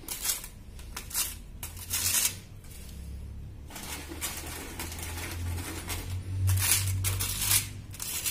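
Plastic bag and baking paper rustling in short bursts, with light knocks, as crisp wheat flour biscuits are dropped into a bag-lined plastic storage container.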